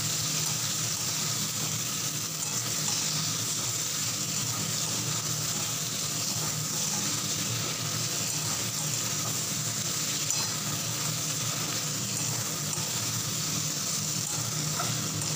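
Cubed potato and pumpkin sizzling steadily in hot mustard oil in a kadai while a spatula stirs and turns them.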